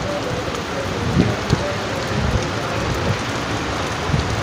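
Steady rain falling in a strong wind, with a few low thumps of wind gusting on the microphone.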